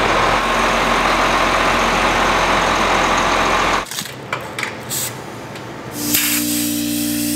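John Deere 4840 tractor's six-cylinder diesel engine running, cutting off abruptly just under four seconds in. A few clicks follow, then about six seconds in a portable electric air compressor starts and runs with a steady hum.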